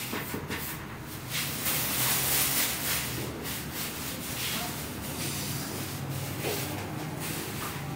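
Dry rubbing and brushing noises from flour-dusted hands working at a baker's table, loudest about two seconds in, over a steady low hum.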